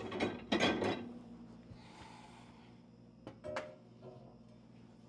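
Quiet kitchen handling sounds: a breathy rush in the first second, then two light clinks of dishes a little over three seconds in, over a faint steady hum.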